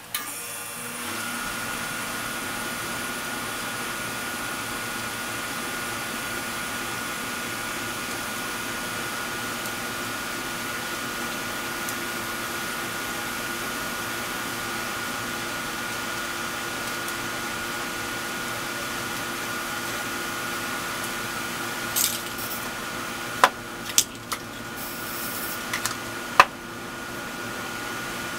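A motor running steadily with a constant whine, switching on at the start. Several sharp clicks and knocks come near the end.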